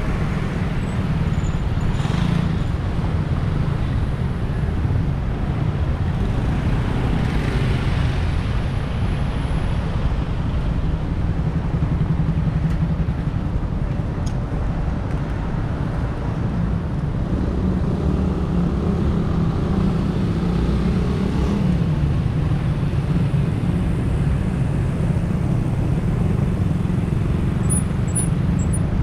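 City road traffic heard from a moving bicycle: a steady low rumble with vehicles passing, and an engine rising and falling in pitch about twenty seconds in.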